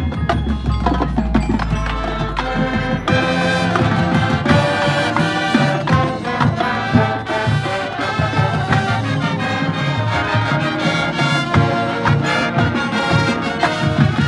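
Marching band playing, with brass over drum-line percussion. A low held note fills the first three seconds, then full brass chords come in over a steady drum beat.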